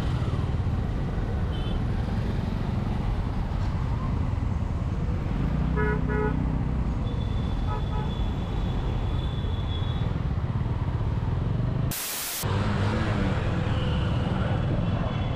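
City road traffic heard from a motorcycle: a steady low engine and traffic rumble with vehicle horns honking, two short toots about six seconds in and more later. A short burst of hiss about twelve seconds in.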